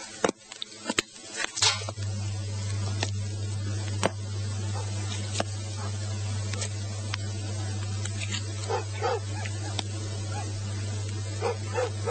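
A steady low hum with a hiss over it sets in after a few sharp clicks. From about two-thirds of the way through, a dog whimpers and yips in short calls.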